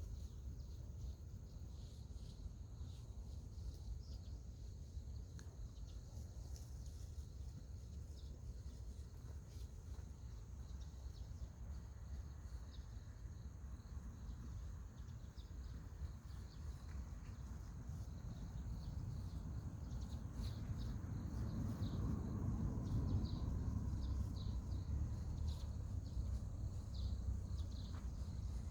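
Outdoor ambience: a steady high-pitched insect drone, like crickets, with scattered short chirps over a low rumble that swells in the second half.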